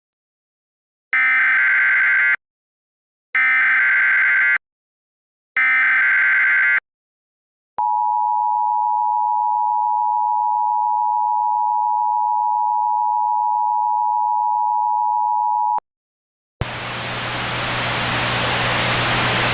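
Emergency Alert System tones: three short bursts of screeching SAME header data, then the steady two-tone attention signal held for about eight seconds, heralding a tornado emergency warning. About three-quarters of the way through, a loud hiss of static comes in and keeps going.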